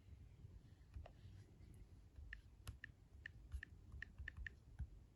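Faint keystrokes on a computer keyboard: about ten light, irregular clicks, most of them in a quick run through the second half.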